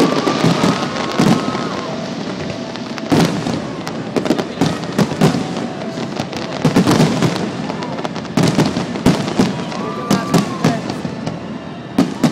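Fireworks display going off: repeated bangs, some in quick clusters, with crackling and a steady rumble between them.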